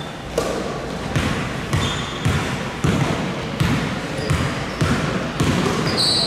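Basketball being dribbled on a gym floor: a steady run of about ten bounces, roughly one every half second or so.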